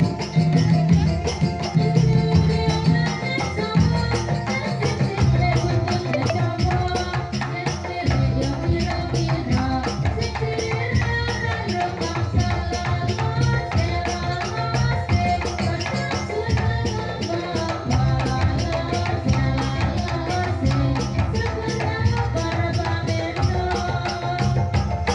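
Music for a dolalak dance, a Javanese folk form: a fast, steady percussion beat with a heavy bass and a melody line over it.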